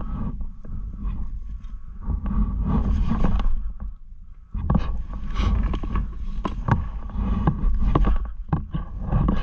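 Boots scrambling over rock and loose gravel: irregular crunches, knocks and scrapes over a heavy low rumble on the helmet-camera microphone, with a short lull about four seconds in.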